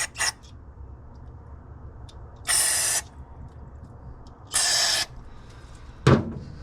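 Two short hissing blasts of aerosol brake cleaner, about half a second each and two seconds apart, then a short sharp knock near the end.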